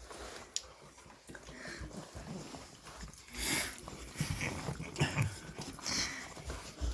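Puppies licking and lapping at peanut butter: short, irregular wet licks and smacks.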